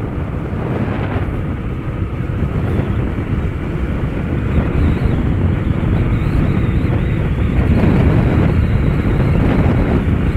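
Wind rushing over the microphone of a moving motorcycle, with the engine and road noise underneath, growing gradually louder over the first several seconds.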